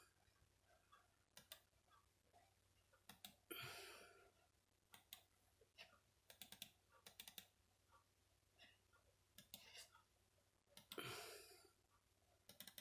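Quiet computer-mouse clicking, single clicks and quick pairs every second or two, as the DVR playback menu is worked. Two short rushes of noise stand out, about three and a half seconds in and near eleven seconds in.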